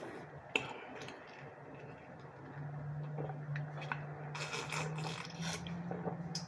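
Close-up mouth sounds of a person chewing and biting into a messy hot pastrami sandwich: scattered wet smacks and clicks, with a cluster of noisy chewing near the end. A low steady hum joins about two and a half seconds in.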